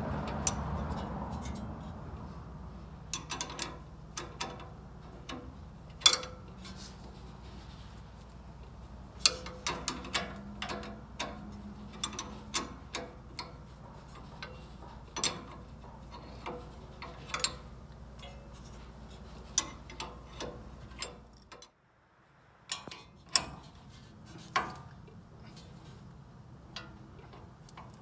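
Hand ratchet wrench clicking in short, irregular bursts while it turns a nut on a front suspension, with metal clinks from the tools. A low steady hum underneath cuts off suddenly about three quarters of the way through.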